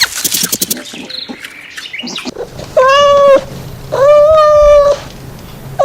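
Bird chirps at the very start, then an animal giving three long, level calls about a second apart, each under a second long, the last running on past the end.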